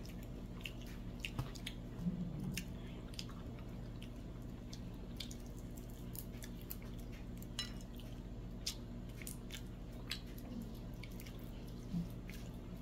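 A person eating by hand: scattered soft clicks and wet mouth smacks of chewing, with fingers working sticky rice and picking food from a plate, over a steady low hum.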